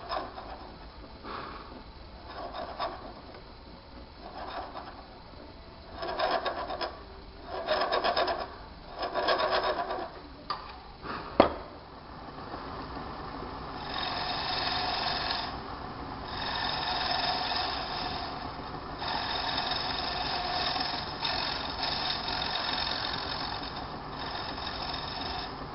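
Hand-held turning tool scraping a bone chess pawn as it spins on a small lathe. It cuts in short strokes of under a second at first, then in longer, steadier cuts through the second half. There is one sharp click a little before the middle.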